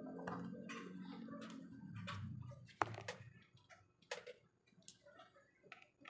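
A few sharp, isolated clicks of a small screwdriver and tools on a smartphone's housing. They come while working at a screw whose thread seems stripped. The loudest click is a little under three seconds in, and two more follow over the next two seconds.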